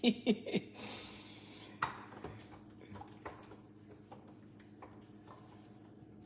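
Wire whisk and wooden spoon stirring custard in a stainless steel pot, giving light, irregular clicks and scrapes against the metal over a faint steady hum. A voice is briefly heard right at the start.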